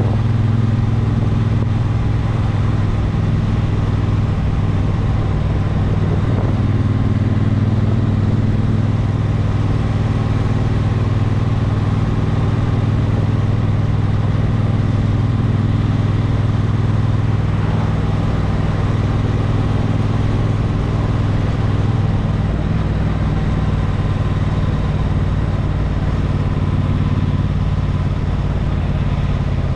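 A motor vehicle's engine running at a steady speed, a constant low drone with a haze of driving noise that hardly changes.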